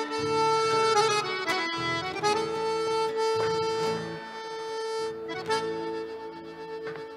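Live folk music led by an accordion playing long held notes over a bass accompaniment, with a few sharp knocks.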